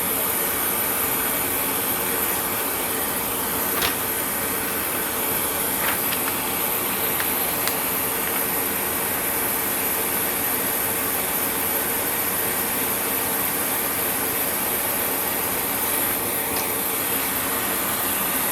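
A steady whirring noise, like a running motor or fan, with a few light clicks.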